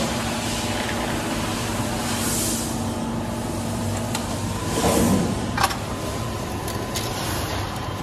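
Steady machine hum of an Edwards Pearson CNC press brake running powered up at rest, with a brief swell of low rumble about five seconds in and a sharp click just after.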